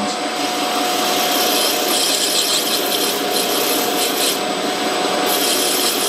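Metal lathe turning down a brass workpiece, the tool bit taking a 40-thousandths cut: a steady rasping hiss of the cut over the lathe's running whine.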